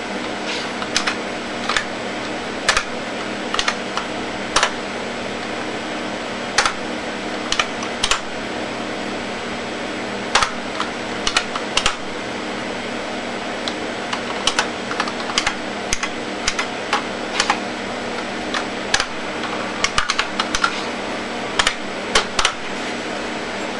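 Computer keyboard keys pressed one at a time in irregular clicks, some in quick runs, over a steady whirring hum from the computer's cooling fans.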